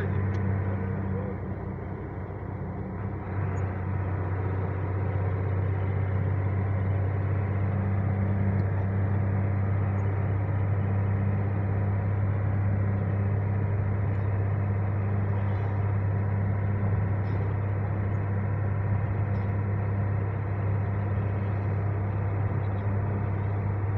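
Vehicle engine and road noise heard from inside the cab while driving, a steady low drone. It eases slightly a second or two in and picks back up about three seconds in.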